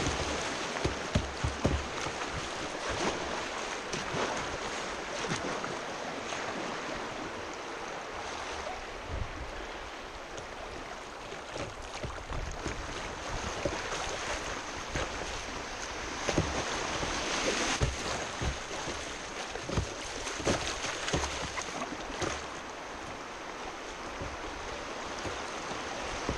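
Rushing whitewater around a kayak running a shallow rapid, with frequent short splashes and knocks against the hull.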